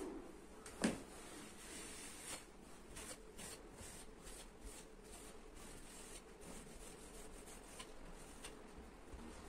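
Faint handling noises: a single sharp knock about a second in, then a run of light clicks, taps and rustling.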